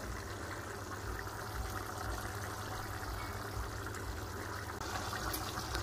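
Bolognese sauce simmering in a pan on the stove: a steady, even bubbling over a low steady hum.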